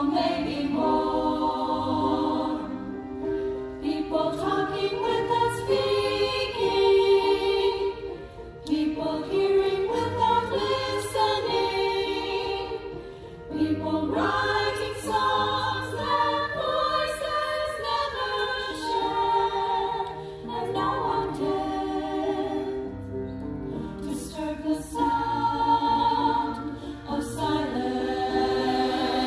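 Mixed choir singing a piece in long phrases with orchestral accompaniment, the voices pausing briefly between phrases.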